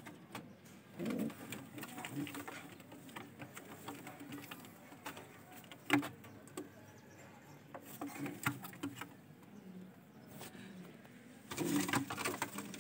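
White domestic pigeons cooing, low repeated coos with scattered clicks. A sharp click comes about six seconds in, and the sound grows louder and busier near the end.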